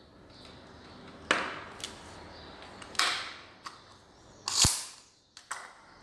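Sharp snaps and clicks from a small spring-return tape measure being handled and wound back. The loudest comes about three quarters of the way in, a short rush ending in a knock, fitting the plastic case being set down on the wooden tabletop.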